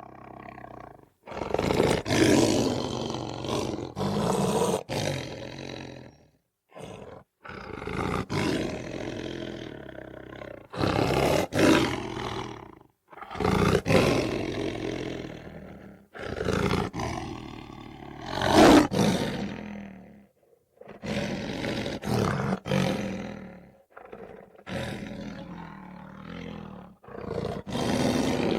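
A lion growling and giving light roars in a string of bouts, each a few seconds long, with short pauses between them.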